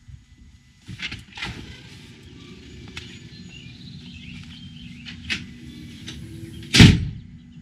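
A storm door's latch and handle click twice as the door opens, then steady outdoor background noise with a few small clicks, and one loud thump near the end.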